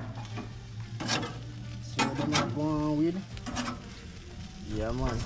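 Jerk chicken sizzling on a steel drum grill, with a few sharp clinks in the first half. A voice sounds briefly twice, near the middle and near the end.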